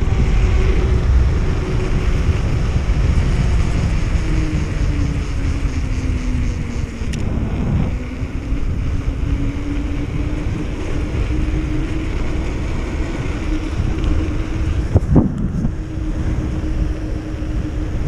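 Wind rushing over the microphone of a handlebar-mounted camera on a fast downhill bicycle ride, with the tyres rolling on asphalt. A faint hum under the rush slowly dips and rises in pitch.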